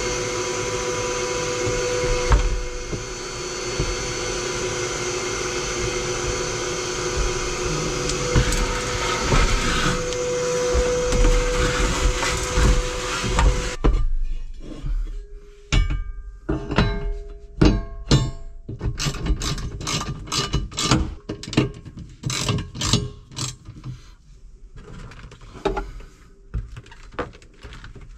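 Shop vacuum sucking up debris from a tractor cab floor through a hose with a crevice nozzle. It runs steadily with a whining tone and cuts off suddenly about halfway through. After that come scattered knocks and clanks, some of them ringing briefly, as the metal seat base plates are handled.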